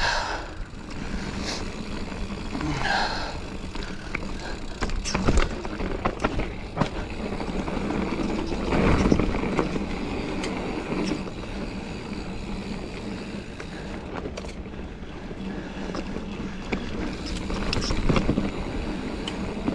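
Giant Fathom mountain bike being ridden along a dirt trail: continuous tyre and drivetrain noise with rattles, and sharp knocks over bumps, the loudest about five and nine seconds in.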